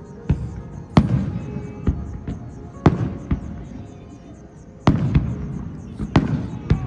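Aerial fireworks shells bursting: about ten sharp bangs at uneven intervals, each trailing off in a low rumbling echo, with a short lull around four seconds in.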